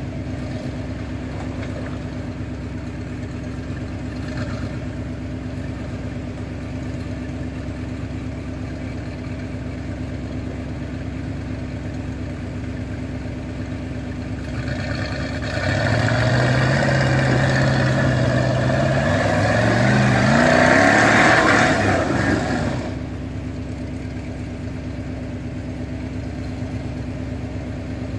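Off-road rock buggy's engine running steadily at low revs while it sits on a steep dirt climb, then revved hard for about seven seconds from about halfway in, the pitch holding and then climbing before it drops back to a low run.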